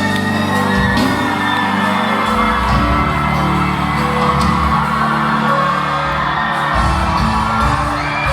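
Live gospel worship music: the band holds sustained chords over a changing bass line, with the crowd whooping.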